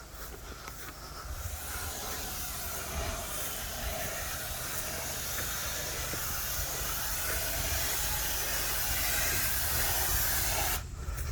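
Pressure washer spraying concrete: a steady, loud hiss of the water jet that builds about a second in and cuts off suddenly near the end, over a steady low hum.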